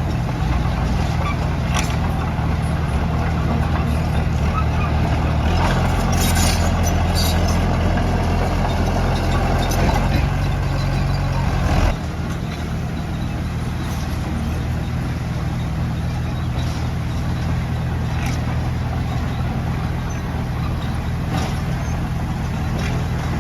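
Heavy diesel engine of earthmoving machinery running steadily, louder for the first half and then dropping back suddenly about halfway through, as if the throttle eases off. A few scattered metallic clanks sound over it.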